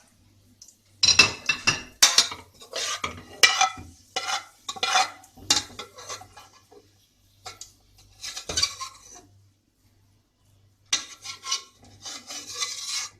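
Steel ladle scraping and clinking against a frying pan as crisp-fried onions are scooped out of the oil, in a run of quick strokes. A single knock comes about eight seconds in, then more scraping near the end.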